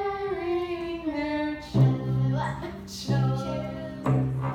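A voice sings a short note that slides downward, then a cello plays three bowed strokes on the same low note, each shorter than the last.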